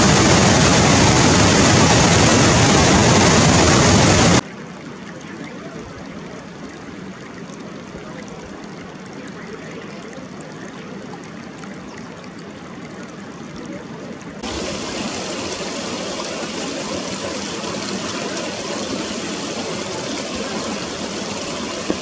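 Rushing stream water, an even hiss with no clear bird calls. It is loud at first, drops suddenly to a much softer rush about four seconds in, and grows louder again about two-thirds of the way through.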